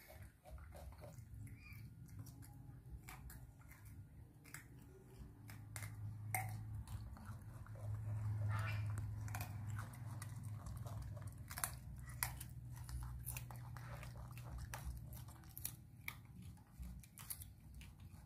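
Baby macaques chewing and biting pieces of soft fruit and vegetable, with many small scattered clicks and smacks. A low steady hum swells through the middle and is loudest about halfway through.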